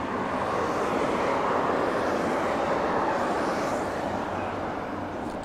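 Road traffic passing: a steady rushing sound with no clear pitch that swells over the first couple of seconds and eases off near the end.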